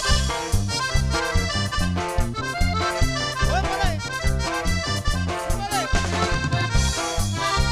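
Norteño band music: an accordion plays an instrumental passage between sung verses over a steady bass beat.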